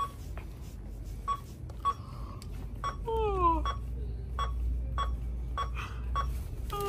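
Checkout register beeping as items are scanned: about nine short, same-pitched beeps, roughly one every half second to second, each item ringing up at a penny. About three seconds in, a person's voice glides downward briefly.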